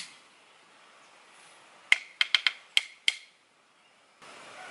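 A quick run of six sharp clicks, each with a short bright ring, over a little more than a second.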